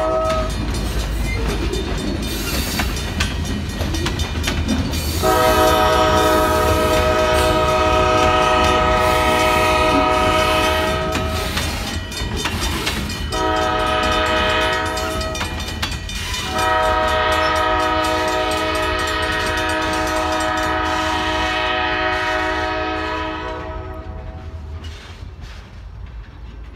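Freight train rolling through a grade crossing: railcar wheels rumbling and clacking on the rails. Three long blasts of a multi-chime locomotive horn sound over it, with the crossing's mechanical bells ringing. Everything fades out near the end as the train clears.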